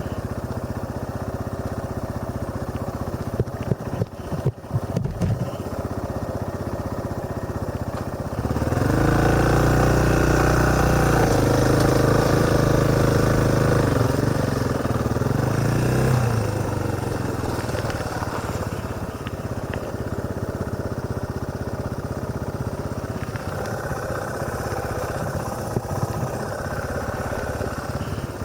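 Motorcycle engine running on the move, picked up by a helmet-mounted camera. A few knocks about four seconds in. About eight seconds in the engine gets louder and revs for several seconds, then settles back to a steady run.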